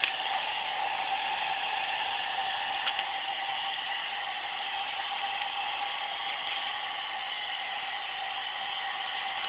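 Hair dryer running steadily, a constant motor whir with a held mid-pitched tone.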